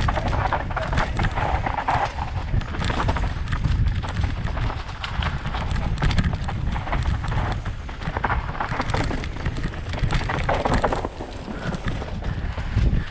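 Mountain bike descending a dry dirt trail: tyres on loose ground and the bike clattering and rattling over bumps, with wind buffeting the helmet-mounted microphone.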